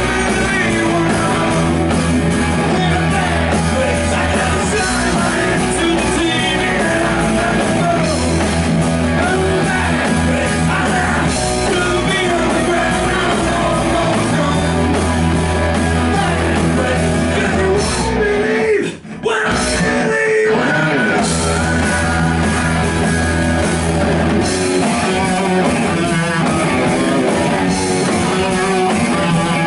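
Live rock band playing: electric guitars, bass guitar and drums, with a male lead singer. The band cuts out for a moment about 19 seconds in, then comes straight back in.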